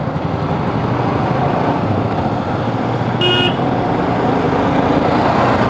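Steady road and traffic noise while riding a Royal Enfield Scram 411 motorcycle, with a short vehicle horn beep about three seconds in.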